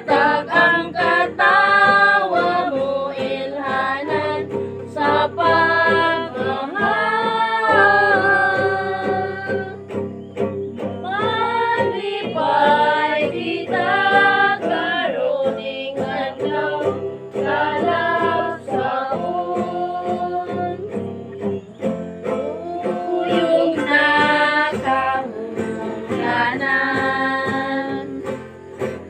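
A group of people singing a song together, with a guitar playing along.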